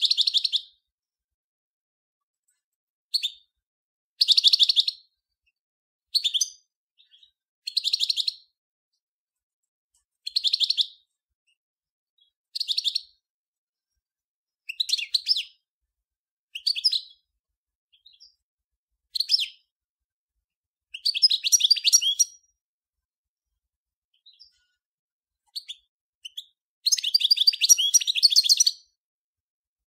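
European goldfinch of the large Major race singing: short, high twittering phrases of about a second each, separated by silent gaps of one to two seconds, with longer runs of song about two thirds through and near the end.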